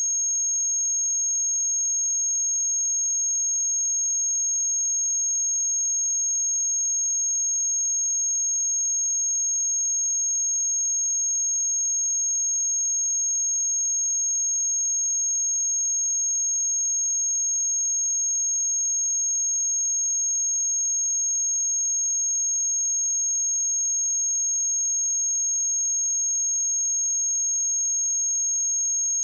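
A pure 6514 Hz sine test tone: one steady, high-pitched whistle held at constant level, for checking speakers or headphones.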